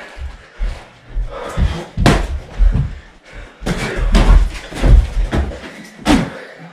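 Padded boxing gloves landing on bodies as two people spar at close quarters, with scuffling in between: a run of irregular, loud thuds.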